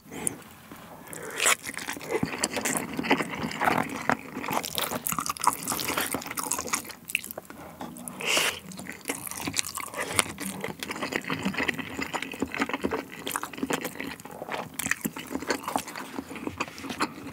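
Close-miked chewing of a mouthful of rice with duck in red pepper paste sauce: wet, irregular smacks and clicks of the mouth.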